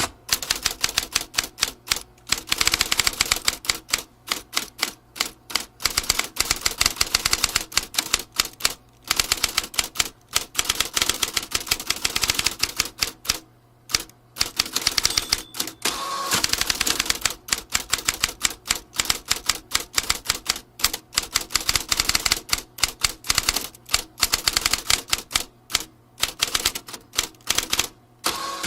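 Vintage typewriter being typed on quickly: a fast, steady run of key clacks with a few short pauses.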